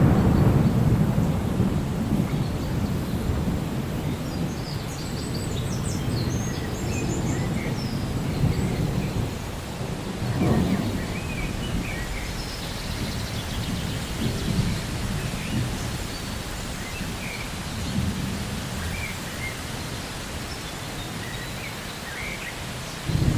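Steady rain during a thunderstorm, with a low rolling rumble of thunder that is loudest at the start and eases off, then swells again a few more times.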